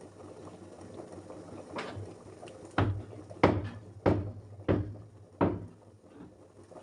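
Green cardamom pods being pounded to crush them: six sharp knocks, a weaker one first, then five evenly spaced ones about one and a half a second, each with a short low thud.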